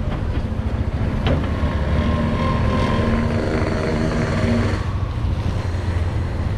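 Honda Tiger single-cylinder motorcycle engine driving a homemade mini dump truck, running steadily while pulling a load of about 1.6 tons of sand. A steadier pitched hum joins it from about two seconds in and fades near five seconds.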